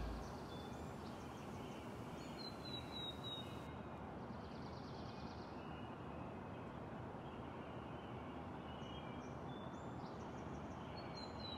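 Faint steady outdoor ambient noise with a few short, high bird chirps, a few seconds in and again near the end.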